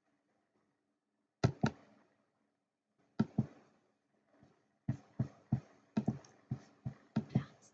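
Sharp taps or clicks, in small-room sound: two quick pairs, then a fast run of about ten.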